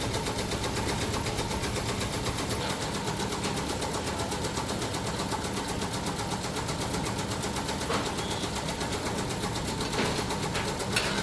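Factory machinery running steadily with a fast, even pulsing, and a few sharp knocks near the end.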